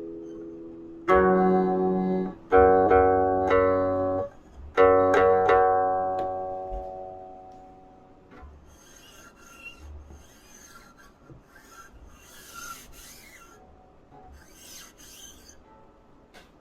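Guqin, a seven-string Chinese zither, playing three plucked notes about 1, 2.5 and 5 seconds in, each ringing and slowly fading. After the last note dies away, only faint, brief scratchy noises remain.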